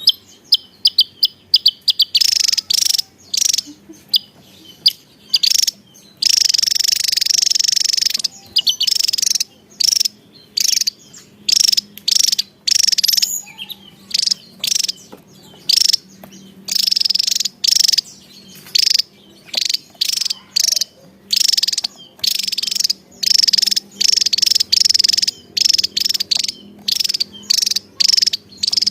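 Javan tesia singing: a long stop-start series of short, high, sharp notes, with a longer unbroken trill about six to eight seconds in.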